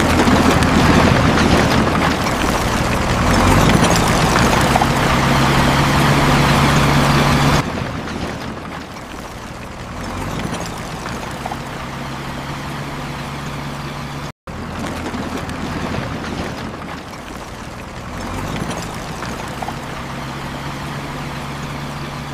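Heavy construction machinery engines running, a steady low drone under a loud hiss. It is loudest for the first seven or so seconds, then quieter, with a brief cut-out about fourteen seconds in.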